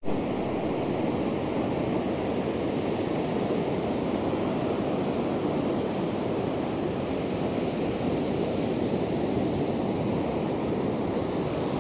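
Ocean surf: a steady, even wash of noise with no single wave standing out.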